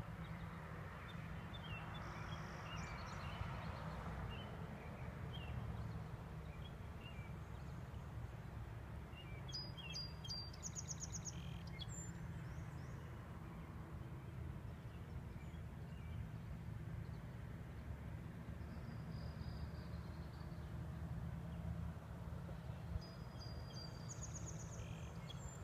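Small birds chirping on and off, with a quick run of high notes about ten seconds in and another near the end, over a steady low rumble.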